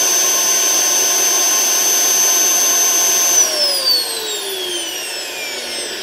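Motor of a Perfect-brand 10-litre commercial vacuum cleaner running on reduced voltage from a Variac with a steady whine; about three and a half seconds in the Variac is switched off and the motor winds down, its pitch falling steadily.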